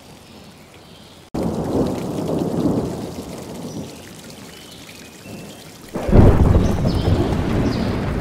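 Thunderstorm: steady rain patter with two rolls of thunder. The first starts abruptly about a second in and eases off over a couple of seconds. The second, the loudest, comes about six seconds in and rumbles on.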